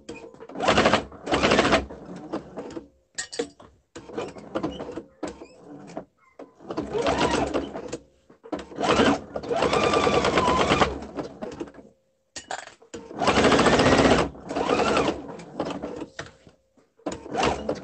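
Electric sewing machine stitching through fabric in a series of runs, some short and some a second or two long, stopping and starting again several times as the work is turned and guided.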